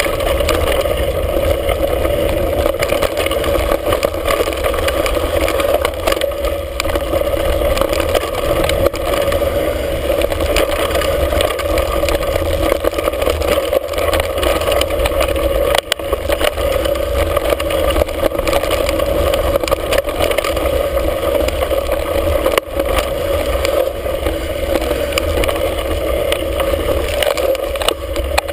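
Wind rushing over a handlebar-mounted camera's microphone as a mountain bike descends a dirt trail at speed, mixed with tyre noise and the rattle of the bike, with a few sharp knocks from bumps.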